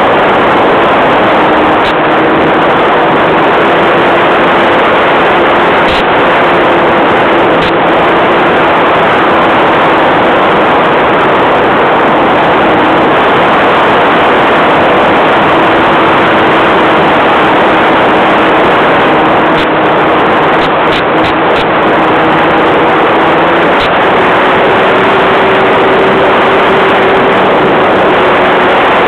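Radio-controlled model airplane engine running steadily in flight, heard loud and close from a camera mounted on the plane, mixed with wind rush. Its pitch steps up slightly near the end.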